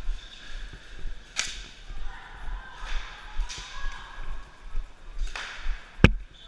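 Low thuds at a walking pace, likely a player's footsteps and gear knocking, with faint distant voices and one sharp crack about six seconds in.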